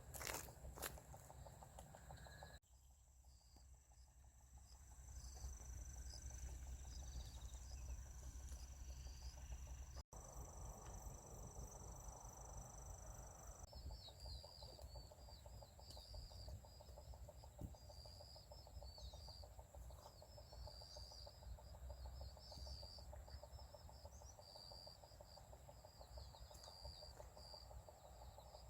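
Faint night insects: a steady high chirring, with crickets chirping in short repeated trills from about halfway in, over a low background rumble.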